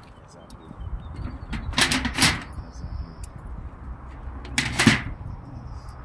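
Thin metal roofing sheet being trimmed by hand with a cutting tool: sharp metallic snips, two close together about two seconds in and another near five seconds, with small clicks between.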